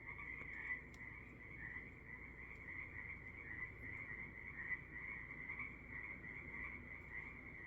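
Frog chorus: many frogs calling at once in a steady, high-pitched din.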